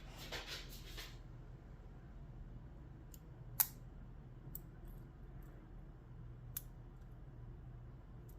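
Lock pick and turning tool working the pins of a Brinks 50 mm laminated padlock during single pin picking. A soft scraping rustle lasts about a second, then come a few scattered sharp clicks, the loudest about three and a half seconds in.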